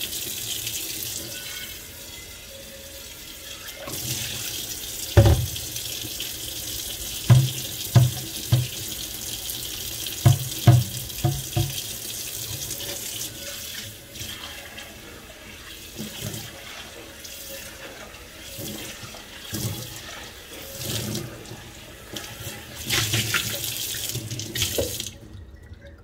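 Water running from a tap into a stainless steel sink, with several sharp knocks about 5 to 12 seconds in and a few smaller ones later. The water cuts off suddenly near the end.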